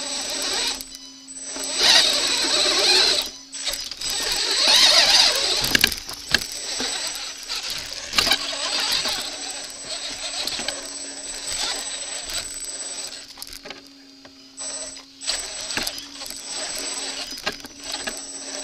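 A 1/8-scale Redcat rock crawler's brushless motor and drivetrain whining steadily as it crawls over rocks, heard from a camera mounted on the truck. Loud surges of tyres scrabbling on rock and gravel come about two and again about five seconds in, with scattered knocks of the chassis against stones.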